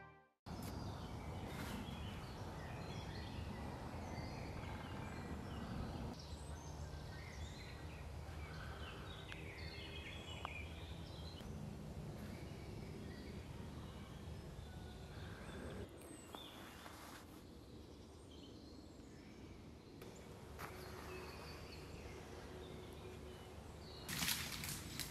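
Woodland ambience: wild birds chirping and calling here and there over a low, steady background rumble. Near the end, crunching, rustling footsteps in leaf litter.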